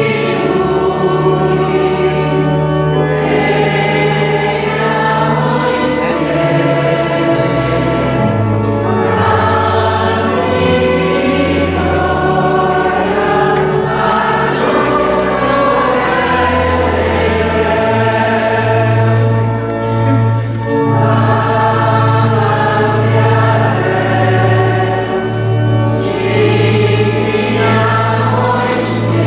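A choir singing a slow hymn in a reverberant church, over steady held low bass notes that shift from chord to chord.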